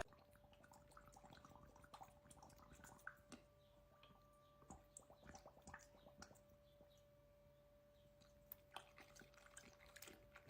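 Near silence: faint room tone with a faint steady hum and a few soft scattered ticks.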